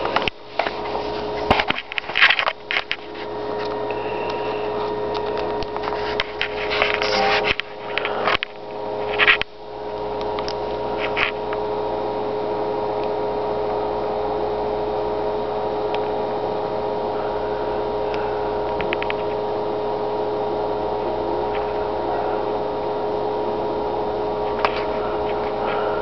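Steady electrical hum made of several held tones. Over it, in the first ten seconds, come knocks and rustles of the camera and the iPod Touch being handled; after that the hum goes on alone.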